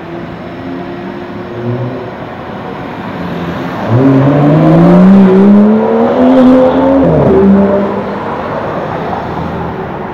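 Aston Martin sports car accelerating past, its engine note rising steadily for about three seconds before dropping sharply and settling at a lower pitch. City traffic hums underneath.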